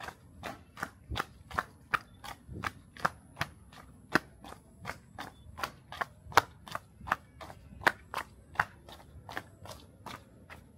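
Footsteps of a person running, quick even strides of about three a second, each a sharp slap.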